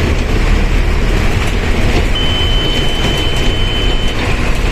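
Mercedes-Benz OF1519 BlueTec 5 bus running under way: steady diesel engine and road noise with a deep rumble. A thin high tone sounds for about two seconds in the middle.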